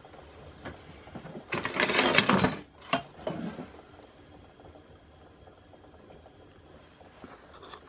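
LG direct-drive washing machine rotor spinning freely on newly fitted shaft bearings, a low steady whir. A loud rustling scrape starts about a second and a half in and lasts about a second, followed by a sharp click and a short, softer scrape.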